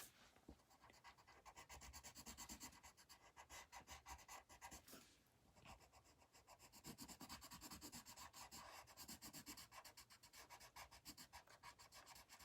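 Colored pencil scribbling on paper, faint rapid back-and-forth strokes as a leaf is shaded in, with a brief pause about five seconds in.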